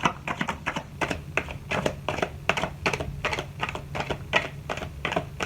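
Rapid, uneven clicking taps, about four or five a second, like typing on a keyboard.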